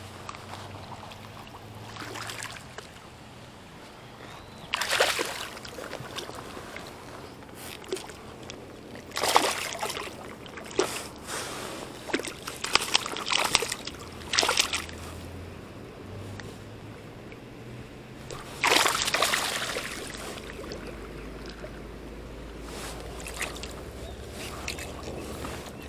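Water splashing and sloshing in the shallows as a hooked carp thrashes while it is landed and held by hand. A handful of separate splashes: one about five seconds in, a cluster from about nine to fifteen seconds, and another about nineteen seconds in.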